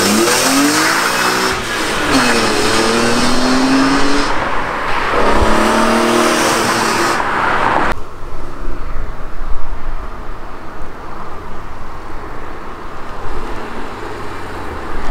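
BMW E46 M3's straight-six engine accelerating hard, its pitch climbing through the revs with two drops at gear changes. About eight seconds in it cuts to a quieter, rough road-and-wind rush as the car comes up the road.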